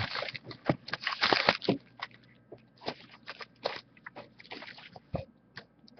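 Trading cards being handled: a run of irregular short scrapes and flicks as cards slide against each other, busiest in the first two seconds and then sparser.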